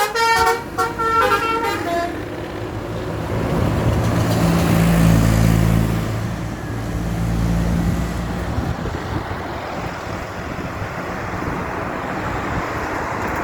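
A bus's telolet horn playing a quick tune of short stepped notes that ends about two seconds in. Then a bus engine runs loudly with road noise, swelling around the middle and fading away.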